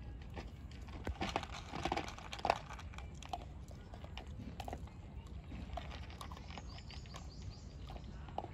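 Dog eating from a person's hand: scattered chewing and crunching clicks, thickest in the first few seconds, over a steady low background rumble.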